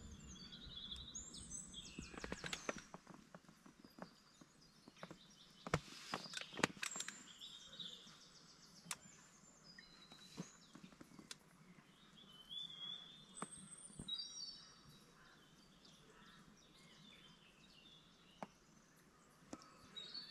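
Birds chirping and calling, with scattered sharp clicks and knocks that are thickest in the first several seconds.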